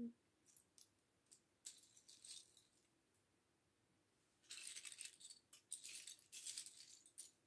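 Loose plastic LEGO pieces clicking and rattling against each other as hands sift through a pile of them. A few faint clicks come first, then a busier stretch of rattling from about four and a half seconds in until just before the end.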